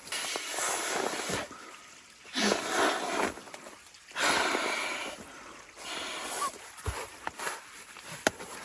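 Handling of a sleeping mat and bedding: several rustling bursts about a second long each, with a few sharp clicks in between.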